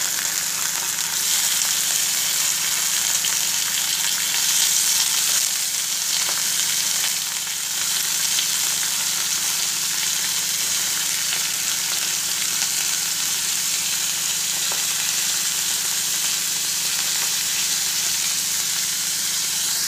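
Thin slices of chicken breast frying in ghee in a stainless steel pan over a low flame: a steady sizzling hiss.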